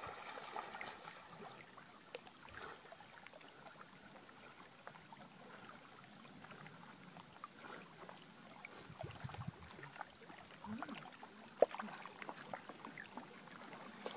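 Faint small waves lapping at a rocky lake shore, with scattered light clicks and one sharper click about eleven and a half seconds in.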